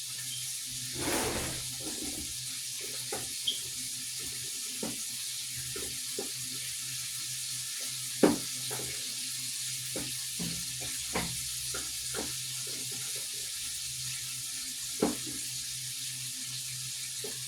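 Shrimp sizzling steadily in a frying pan, with a low steady hum and scattered light clicks and knocks, the sharpest about halfway through and again near the end.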